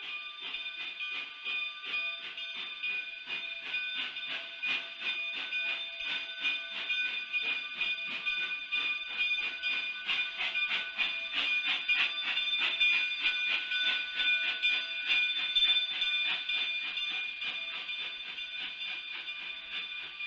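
Narrow-gauge steam passenger train departing at low speed: a rapid, even clatter from the rolling train, with steady high-pitched ringing tones over it. It gets louder about two-thirds of the way through.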